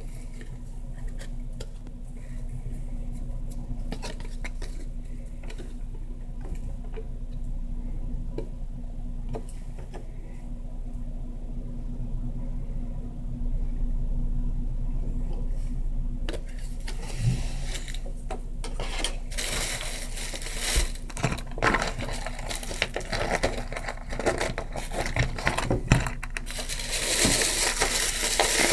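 Hands handling the small plastic pieces and packaging of an acrylic nail kit: scattered light clicks and taps, growing busier past the halfway point, with a dense rustling or scraping noise near the end. A steady low electrical hum underlies it.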